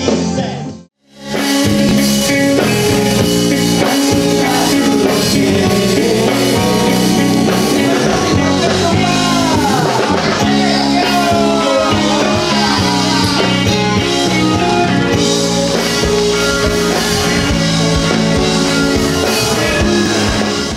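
Band music with singing: a full band with drums, electric guitar and keyboard under the vocals. It breaks off briefly about a second in, comes back, and stops suddenly at the end.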